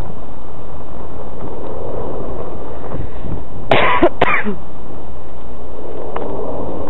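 A loud, steady, wave-like noise with no distinct tones, the unexplained sound the recordist was chasing, heard in still air with no wind. Just past halfway a person coughs twice in quick succession close to the microphone.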